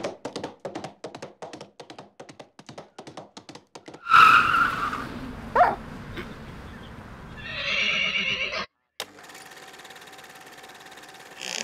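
Horse whinnying as a sound effect, starting about four seconds in after a run of rapid, even clicking at about seven a second. A second shorter burst follows near eight seconds, then a faint steady hum.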